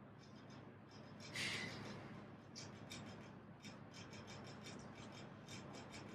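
Faint handling sounds. A short, sharp hiss like a breath comes about a second and a half in, then a run of light clicks and taps as a drink can is raised and drunk from.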